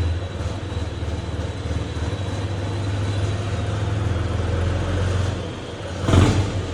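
Diesel tractor engine running at low speed with a steady drone, and a short louder burst about six seconds in.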